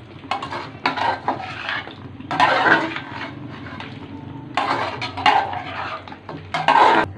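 A metal spoon stirring mutton pieces in yogurt, scraping and clattering against the sides of a large metal cooking pot in irregular bursts, loudest about two and a half seconds in, about five seconds in and near the end.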